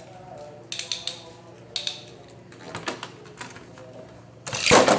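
Plastic clicking and ratcheting of a Beyblade launcher with a Takara Tomy Zwei Longinus top fitted to it: a few separate clicks about a second apart. Near the end comes a loud scraping rush as the top is launched into the stadium.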